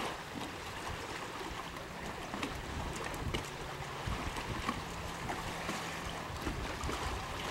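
Engine of an amphibious trike (ultralight flying boat) running with a faint, steady drone, over a rushing haze of water and wind noise.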